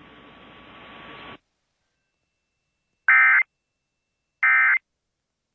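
Emergency Alert System end-of-message signal: two short bursts of warbling digital data tones about a second and a half apart, marking the close of the tornado watch broadcast. They follow a faint hiss of broadcast noise that cuts off suddenly.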